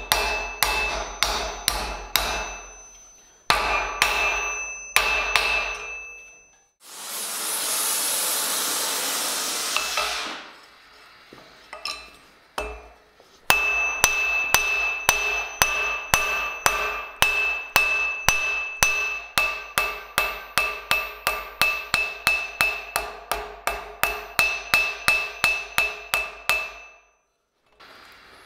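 Hand hammer striking a red-hot steel bar on an anvil in quick, even blows, each with a bright metallic ring. The blows come in short runs early on and then about three a second for over ten seconds. In one gap a steady rushing hiss lasts about three seconds.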